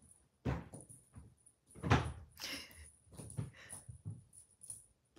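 Soft, irregular thuds and knocks of a kitten scampering and pouncing on a hardwood floor while chasing a string toy, the loudest about two seconds in.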